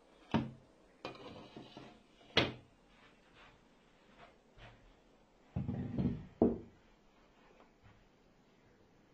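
Knocks and clatter of a trim router with a clear acrylic base being handled and set down on a wooden workbench, the router not running. Two sharp knocks and a short rattle in the first few seconds, then a cluster of heavier knocks and thuds about six seconds in.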